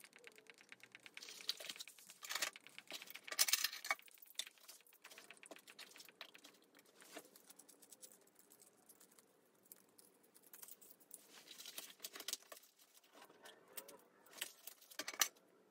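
Small metal hand tools, Allen wrenches and a bore rod, clicking and clinking lightly as they are handled and pressed back into the foam insert of a tool case. There is a scatter of soft clicks, with a few sharper ones about three and a half seconds in and near the end.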